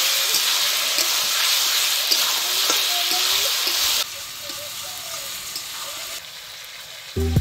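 Sliced onions and tomatoes sizzling in hot oil in a steel karahi while being stirred with a metal spatula, with a few light clicks of the spatula on the pan. The sizzle drops to a lower level about four seconds in.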